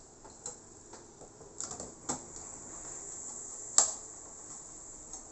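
A few small, sharp clicks and taps of a screwdriver working the lock screw of a laptop's CPU socket and the processor being handled, with one louder click nearly four seconds in.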